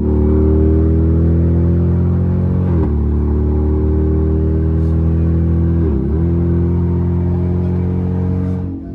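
Vehicle engine pulling hard through the gears, its pitch climbing slowly in each gear and dipping briefly at each shift, about three and six seconds in and again near the end.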